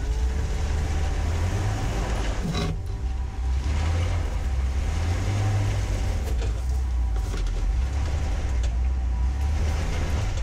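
Jeep Gladiator Rubicon's V6 engine running under load at crawling speed with front and rear lockers engaged, its mud-packed tires spinning on the rock ledge without getting the truck over. A single knock comes about two and a half seconds in.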